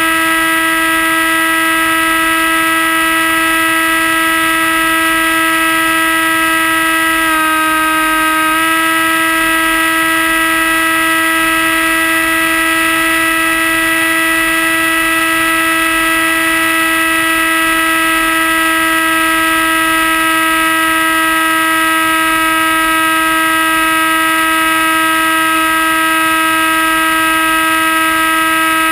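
Model airplane's motor and propeller running at full throttle, a steady high-pitched whine heard from a camera mounted on the plane. About seven seconds in, the pitch dips slightly for about a second, then returns. The motor is held at 100% to carry the weight of the added GoPro.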